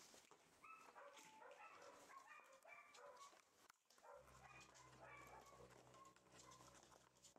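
Rough collie puppies giving faint, short high-pitched yips and whimpers, several in quick succession in the first three seconds and a few more later, with small clicks of paws and claws on a wooden floor.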